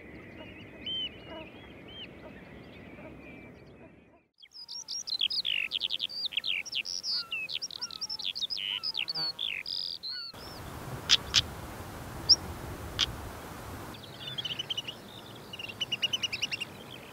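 Outdoor bird song in separate stretches: faint chirps over quiet ambience, then several seconds of loud, rapid, sweeping song. After a steady hiss with a few sharp clicks, a male common linnet twitters near the end.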